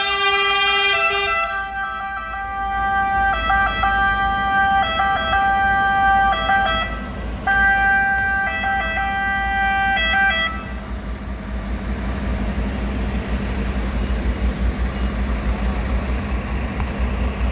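Several fire engines sounding their sirens and horns together as a salute, a chord of held tones with repeated two-tone pitch steps. The sirens stop about ten seconds in, leaving a steady low engine rumble.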